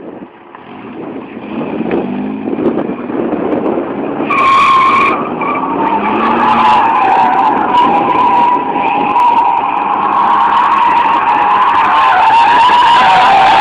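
Mercedes-Benz W123 280E's 2.8-litre straight-six revving hard while the car drifts, tyres squealing as they slide. There is a short sharp squeal about four seconds in, then a long wavering squeal that grows louder toward the end as the car slides nearer.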